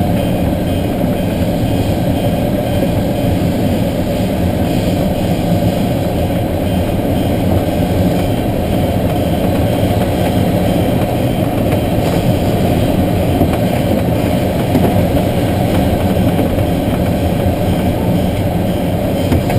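Steady rush of air over the canopy of a motorless Schweizer 1-34 sailplane gliding low on final approach: a dense, even low rumble with no engine.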